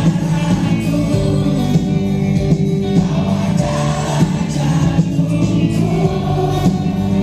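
Live rock band playing loud: electric guitars, bass and drums, with singing over them.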